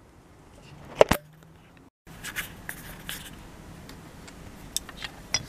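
Small clicks and light scraping from the plastic inside door handle assembly of a 2009 Hyundai Veracruz as it is handled and taken apart. Two sharp clicks close together about a second in, then a brief dropout, then scattered fainter clicks.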